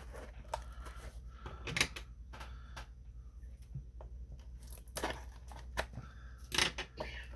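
Trading-card packaging being handled: plastic and foil wrappers crinkling and tearing in short, scattered rustles and light clicks.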